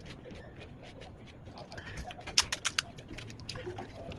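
Close-up mouth sounds of eating pani puri: soft chewing with scattered clicks, and a quick run of sharp crunches about two and a half seconds in.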